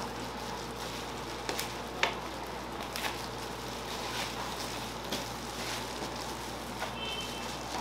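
Food frying with a steady sizzle, with a few sharp clicks and a brief high beep near the end.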